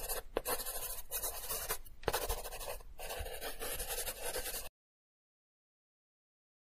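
Marker pen writing a word by hand, its tip scratching across the surface in a run of strokes with short breaks between letters. It stops about two thirds of the way in, followed by silence.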